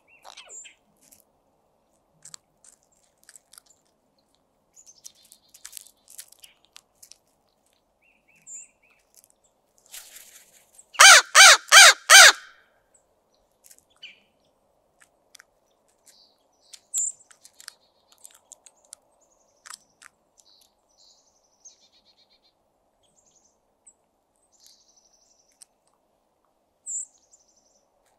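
Crow calling four loud caws in quick succession about eleven seconds in. Otherwise only a few short high chirps and faint ticks.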